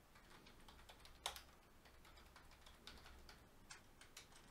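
Computer keyboard keystrokes, faint and irregular, with one louder key click about a second in.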